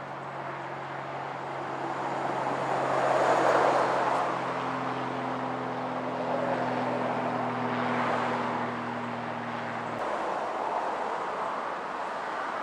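A road vehicle passing, its noise swelling and fading twice, over a steady low hum that stops abruptly about ten seconds in.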